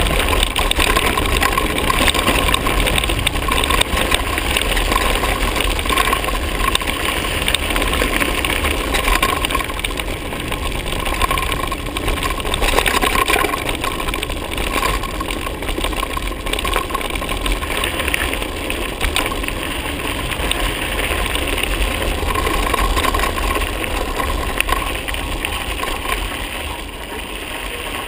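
Wind buffeting the microphone and the tyres of a mountain bike rolling over a gravel dirt track, a steady rushing and crunching that eases a little near the end as the bike slows.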